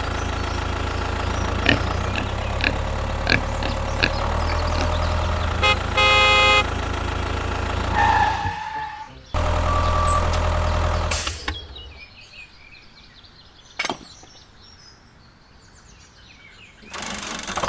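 Tractor engine sound effect running steadily, with a short horn honk about six seconds in. The engine cuts out briefly, comes back, then stops; what follows is much quieter, with a single click near the end.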